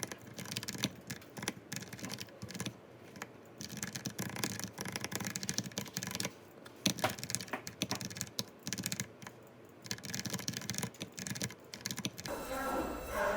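Typing on a computer keyboard: quick, irregular key clicks in runs with short pauses. Near the end it gives way to a steadier, louder background sound with a hum.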